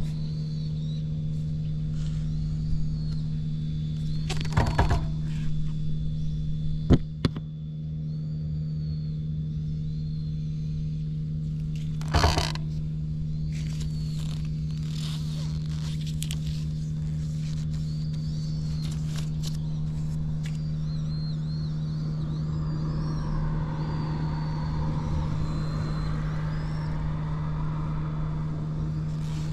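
Suzuki GN125H's air-cooled single-cylinder four-stroke engine idling steadily, a sign of a healthy, even-running engine with no abnormal noises. A few sharp knocks sound in the first half.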